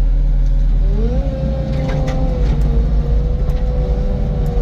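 Cat 255 skid steer's diesel engine running, rising in pitch about a second in as it is throttled up to move the machine, then holding steady at the higher speed with a few light clicks.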